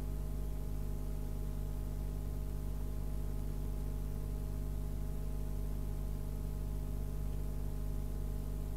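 Steady low electrical hum of several fixed tones under a faint hiss: recording background noise with no singing or music.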